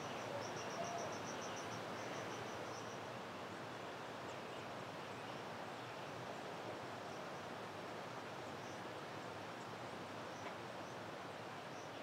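Rainforest ambience: a steady hiss of insects and forest. A fast, high-pitched pulsing trill of about nine pulses a second stops about three seconds in, and scattered faint high chirps follow.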